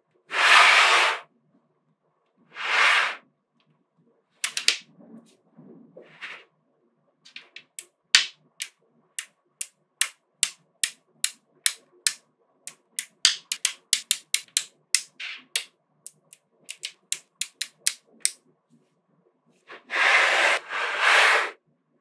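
Small magnetic balls clicking sharply as they snap against one another, many separate clicks in an uneven run. A flat sheet of the balls rattles as it is slid across the tabletop near the start and again near the end.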